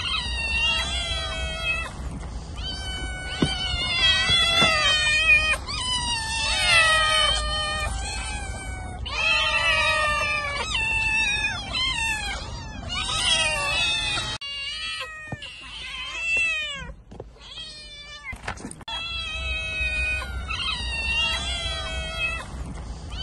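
Domestic cat meowing over and over, a string of drawn-out, wavering calls one after another, fainter for a few seconds past the middle.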